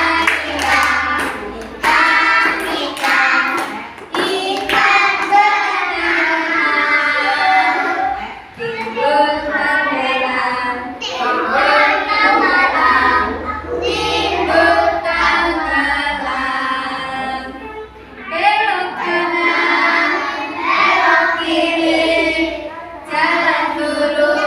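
A group of young children singing a song together, with a woman's voice singing along.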